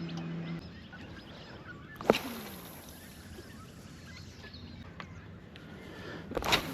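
A steady low hum cuts off about half a second in. Two sharp knocks follow, one about two seconds in and a louder one near the end, over faint bird calls.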